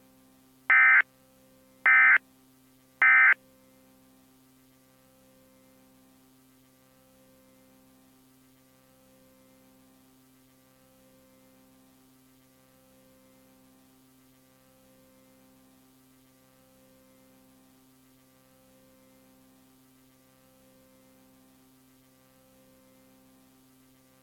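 Emergency Alert System end-of-message code: three short bursts of shrill digital data tones about a second apart. A faint steady hum follows, swelling and fading gently about once a second.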